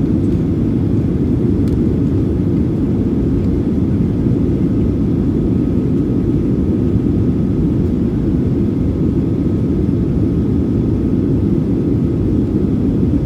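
Airplane engines running, a steady, unchanging low noise with a faint high tone.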